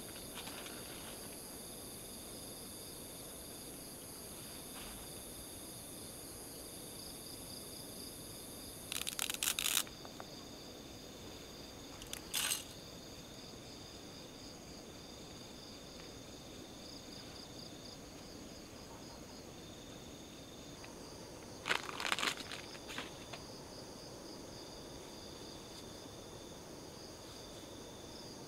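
Crickets and other night insects chirping steadily. Three brief crackling handling sounds break in: two close together partway through and one later, from dry noodles being snapped and handled over a pot.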